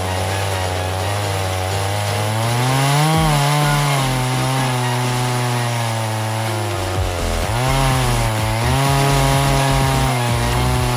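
Two-stroke chainsaw running at high revs while milling a sweet gum crotch into slabs. Its engine pitch climbs about two seconds in, sags briefly near seven seconds as the chain loads up in the cut, then recovers.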